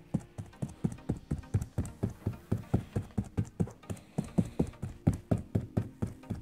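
Dish-washing sponge dabbed rapidly onto a stretched canvas, laying on acrylic paint, each dab a dull tap on the canvas at a steady four to five a second.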